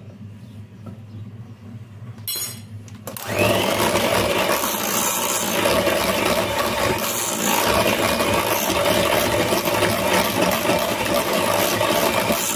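Electric hand mixer beating cocoa cake batter in a glass bowl: after a short burst, it starts about three seconds in and runs steadily and loudly.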